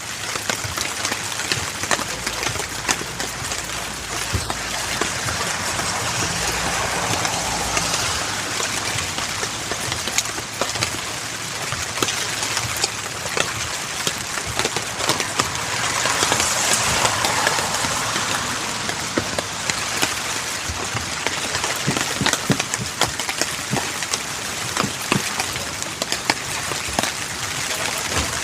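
Heavy rain falling: a steady hiss with many sharp drop impacts, swelling a little about two-thirds of the way through.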